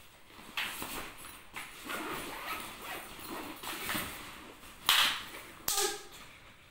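Nylon skate bags and plastic packaging being handled and opened: rustling with several short, sharp noisy bursts, the loudest about five seconds in.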